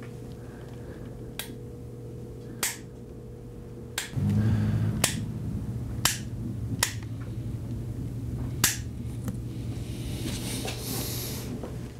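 Sharp clicks, about seven, at irregular intervals over a steady low hum; the hum grows louder about four seconds in.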